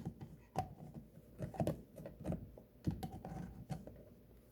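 Irregular small plastic clicks and knocks as the lid of a USB mini humidifier is handled and pressed shut.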